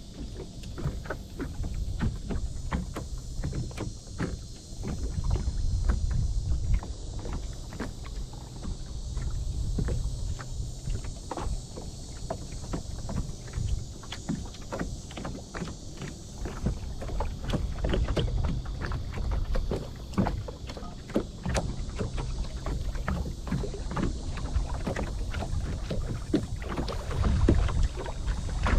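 Wind rumbling on the microphone aboard a small boat, with many short knocks and taps against the hull.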